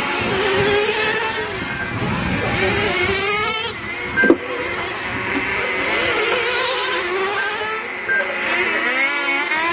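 Several 1:10 scale nitro RC touring cars' small glow-fuel engines running at high revs, their pitch rising and falling as they brake and accelerate around the track. A sharp knock a little over four seconds in, and a few short beeps.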